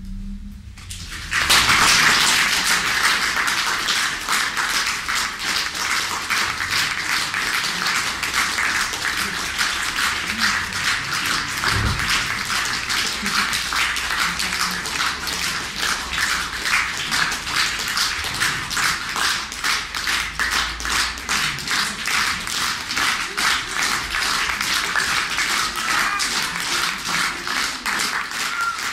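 Audience applause breaks out about a second in, just after the final chord, and continues at an even level.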